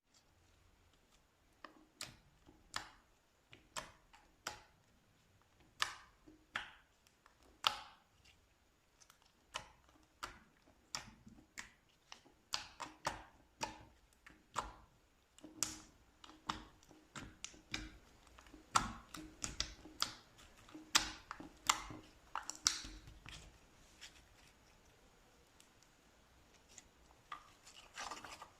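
Slime being squeezed and poked by hand, giving a run of irregular sharp clicks and pops from trapped air. They come thickest in the middle and thin out near the end.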